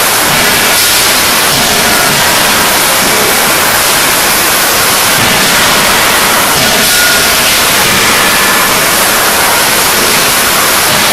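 Steady din of a forging shop with its forging hammers and presses running: a loud, even hiss in which no separate hammer blows stand out.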